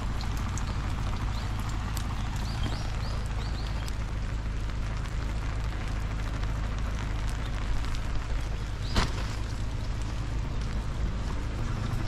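Steady light rain falling on pavement, an even wash of noise with a low rumble underneath. A few faint high chirps come about three seconds in, and a single sharp click near nine seconds.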